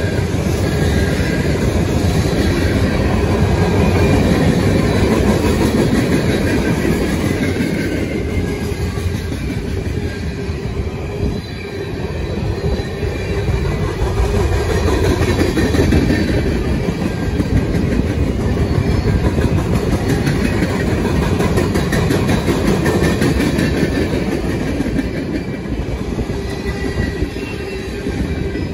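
Long freight train's cars rolling past, a steady loud rumble of wheels on rail with clatter over the joints and faint high-pitched wheel squeal at times.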